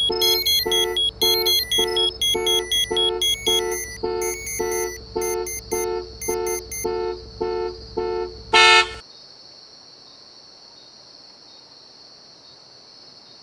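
Electronic alarm on an iPod touch sounding in short repeated pulses, about two a second. A loud thump just after eight seconds in cuts it off, and a faint steady high hiss remains.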